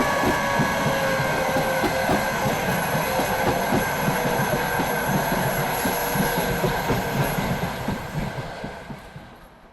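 A train passing close by: wheels knocking over rail joints under a rumble, with steady high wheel squeal. It fades away over the last second or two.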